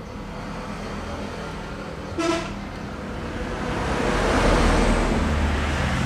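Street traffic: a short vehicle horn toot about two seconds in, then a motor vehicle passing close by, swelling to its loudest around four to five seconds, over a steady low hum.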